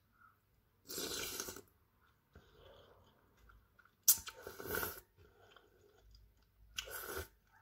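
Instant fried noodles being slurped into the mouth three times, close to the microphone, with soft chewing in between.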